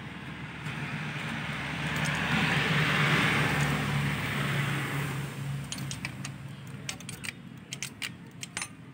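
A passing motor vehicle swells and fades over the first five seconds or so. Then comes a quick run of small sharp metallic clicks from hands working the parts of the opened ignition distributor of a Toyota 4K engine.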